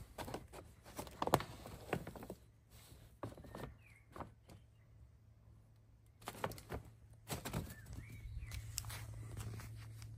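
Woven plastic garden waste bag crinkling and rustling in irregular bursts of crackles and knocks as a cat moves around inside it.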